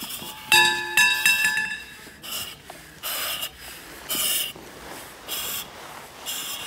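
Firefighter breathing through a self-contained breathing apparatus mask: air hisses through the mask with each breath, about once a second. Near the start come two sharp metallic clinks about half a second apart, each ringing on briefly.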